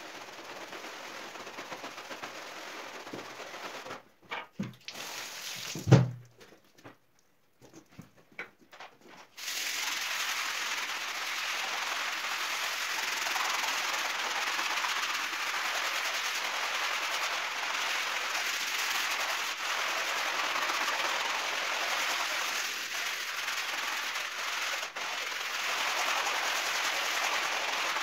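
Brushes scrubbing a wet, foamy rug: a rapid, steady scratching hiss of bristles on wet pile. A few seconds in it breaks off into scattered knocks, with one loud knock about six seconds in. From about nine seconds on, a hand-held scrubbing brush keeps up a steady, louder scratching.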